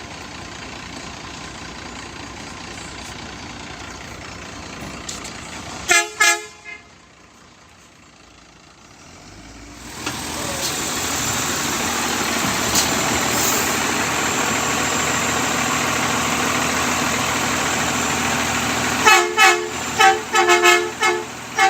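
Truck air horn tooting: two short blasts, then after a truck drives past with steady engine and road noise, a quick run of six or seven short toots near the end.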